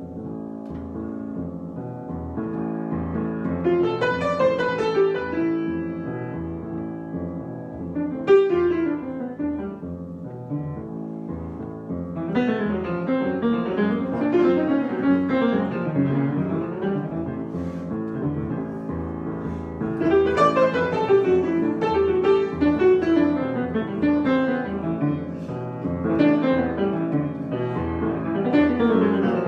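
Solo piano improvisation: quick runs of notes, many sweeping down the keyboard, over sustained low notes. It grows louder over the first few seconds and swells again about twelve and twenty seconds in.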